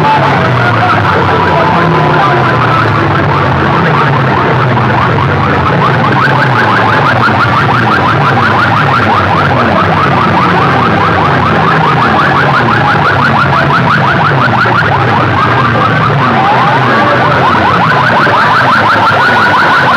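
A very loud siren-like alarm tone blasted through stacks of horn loudspeakers in a sound-system competition. It is a fast, repeating warbling sweep that goes on without a break.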